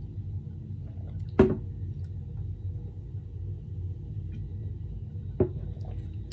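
A person drinking from a plastic shaker cup over a steady low room hum, with a sharp knock from the cup about a second and a half in and a smaller one near the end.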